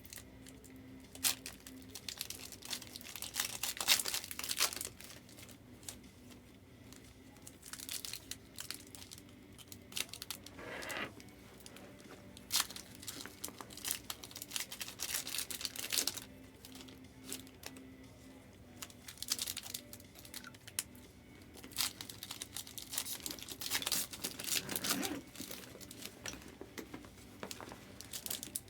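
Plastic trading card pack wrappers crinkling and tearing as packs are worked open by hand, in several bouts of crackling with short pauses between.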